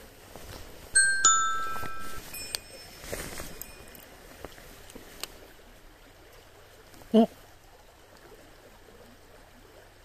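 Several bright bell-like chimes strike one after another, each ringing and fading over about a second, with the faint flow of a stream underneath.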